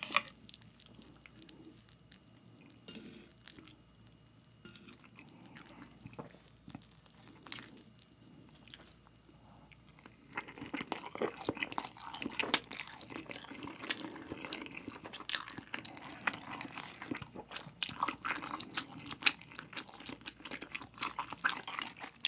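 Close-miked eating sounds: a few quiet clicks of knife and fork cutting egg-topped rice on a plate, then from about ten seconds in, dense open-mouthed chewing of the sauced rice, full of sharp wet mouth clicks.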